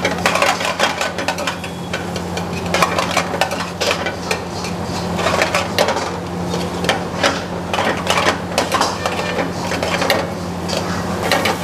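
A steel ladle stirring vegetables and paneer frying in butter in a steel pan: irregular metallic clinks and scrapes of ladle on pan over a light sizzle, with a steady low hum underneath.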